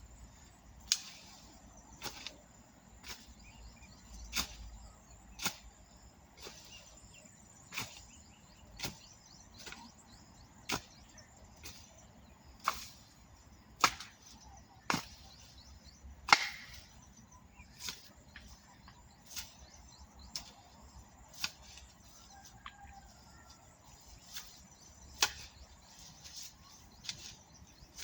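Hand hoe striking into soil again and again while cultivating cassava, a sharp chop about once a second in a steady working rhythm.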